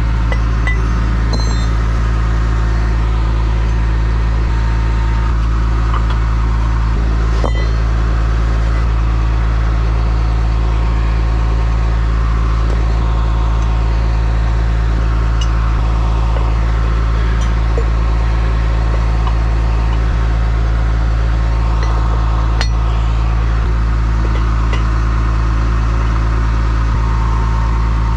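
Medium-duty diesel truck engine idling steadily, with a couple of short metallic clinks as steel towing hardware is handled.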